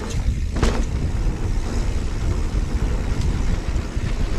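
Mountain bike rolling over a dirt trail: a steady rumble of tyres and rattling frame with wind buffeting the microphone, and one sharp knock about two-thirds of a second in.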